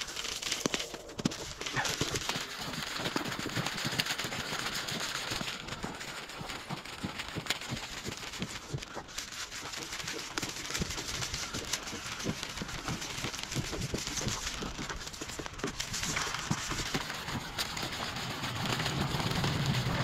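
Footsteps of a person walking on snow and pavement, a steady run of crunching steps, with the walker's breathing and clothing rustle close to a body-worn microphone.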